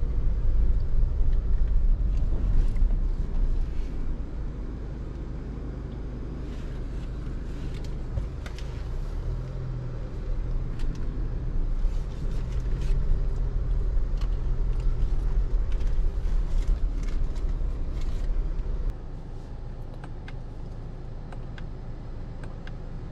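In-cabin sound of a 2023 Chevrolet Colorado ZR2 pickup with its 2.7-litre turbo four-cylinder, driven slowly: a steady low engine and tyre rumble with scattered light clicks. The rumble drops away abruptly near the end as the truck comes to a stop.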